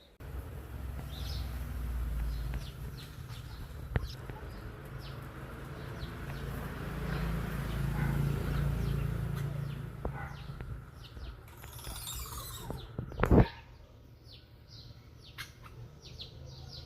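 Birds chirping in many short, high calls over a low rumble. There is a sharp knock about four seconds in, and near the end a brief rush of noise followed by a louder thump.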